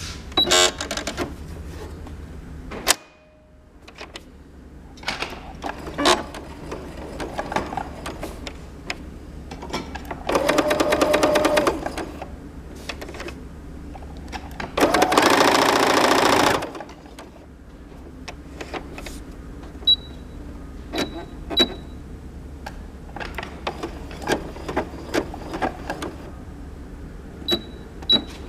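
Baby Lock Tempo sewing machine running in two short bursts of stitching, each about two seconds long, with scattered clicks between them. Several short high beeps in the second half come from its pattern-selection buttons being pressed.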